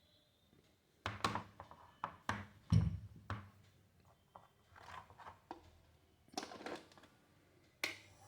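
Scattered clicks and knocks of a heat gun and its plug being handled and pushed into a wall socket, about a dozen in all, with one heavier thump about three seconds in.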